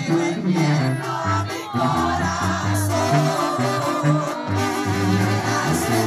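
Live Mexican banda music: a brass band playing with a bouncing tuba bass line and brass above it, while a male singer sings over it.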